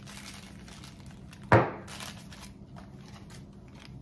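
A Funko blind box and its contents being handled, with faint rustles and small clicks, and one loud, short thump about a second and a half in.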